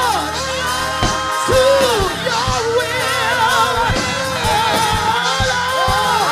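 Live gospel music: a church band with drums and a sustained low keyboard/bass backing, over which voices sing wordless, wavering held notes with vibrato and occasional shouts.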